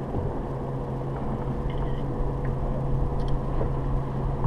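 Boat motor running with a steady low hum and a faint constant whine. There are a couple of faint ticks about three seconds in.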